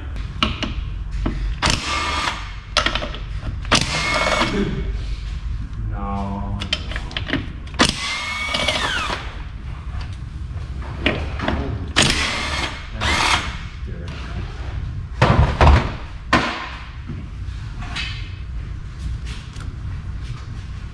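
Cordless drill with a socket extension run in repeated short bursts, some winding up in pitch, backing bolts out of a transfer case, with a few knocks of metal on the steel bench between runs.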